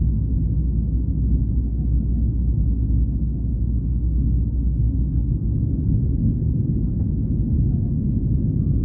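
Steady low rumble heard inside the passenger cabin of a Boeing 737-800, the sound of its CFM56-7B jet engines and the airframe on the ground early in the departure.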